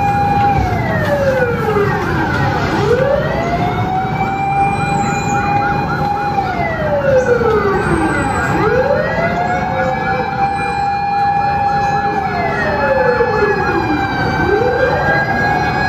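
Sirens wailing: a tone holds steady, slides down for about two seconds and sweeps quickly back up, three times over, with a second siren overlapping at a higher pitch and a fast warble beneath.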